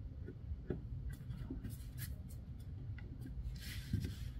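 Fingers pressing and rubbing on a plastic Raspberry Pi case while sticking adhesive feet onto its underside: a few light clicks and scrapes, then a longer scraping rub ending in a small knock near the end.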